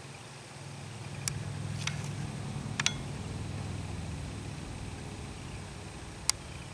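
A few sharp clicks as the quill float and its thread whipping are handled close to the microphone, over a low steady hum that swells and then eases.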